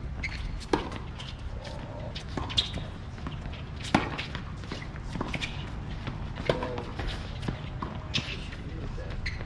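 Tennis rally on a hard court: rackets strike the ball with sharp pops about every second or so, and players' shoes scuff and step on the court between shots.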